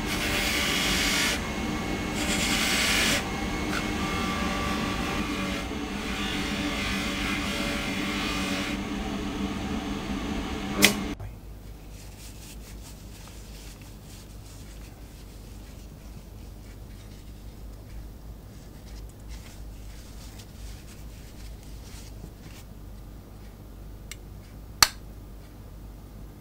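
A small electric tool motor running steadily, cut off with a sharp click about eleven seconds in. After that, quiet handwork with faint light ticks and one more sharp click near the end.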